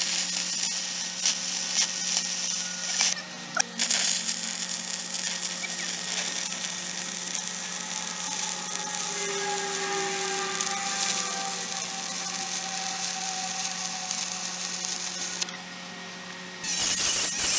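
Stick-welding arc from a CHEM-WELD 7100 electrode on rusty flat steel bars, crackling and sizzling steadily. The arc drops out briefly about three seconds in, an instance of the occasional arc extinguishing this electrode showed. The arc stops near the end, and then a much louder high hiss starts in the last second.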